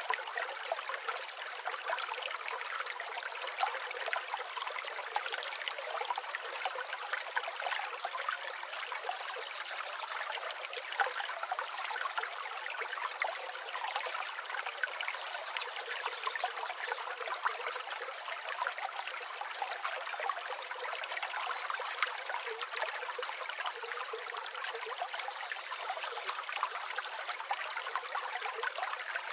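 River water flowing and babbling steadily over stones, with a thin, hissy sound and no deep rumble.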